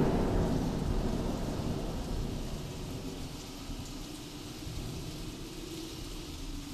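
Thunderstorm sound effect: a low rumble of thunder that fades away steadily, over the hiss of rain.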